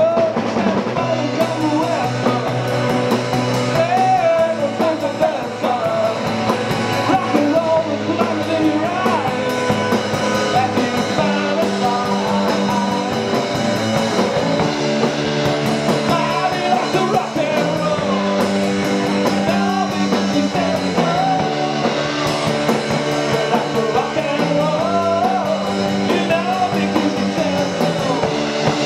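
Live rock and roll band playing: electric guitars over a drum kit, with a bass line stepping between held notes and a lead line bending in pitch above it.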